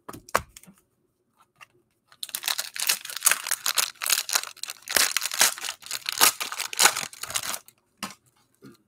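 Crinkling and tearing of the cellophane wrapping on trading-card cello packs as they are handled and stacked. It starts with a few light clicks, picks up into a dense crackle about two seconds in for roughly five seconds, then stops.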